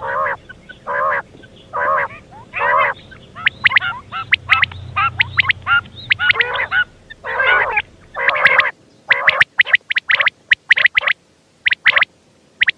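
Quail calling over and over: short, harsh pitched calls about once a second at first, then faster runs of sharper, higher-pitched calls in the second half, ending shortly before the close.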